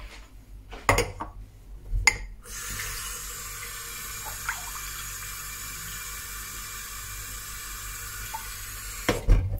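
Kitchen tap running steadily into a ceramic mug held under it in a stainless steel sink, filling it with water for about six seconds. A couple of sharp knocks come before the water starts, and more knocks near the end as it stops.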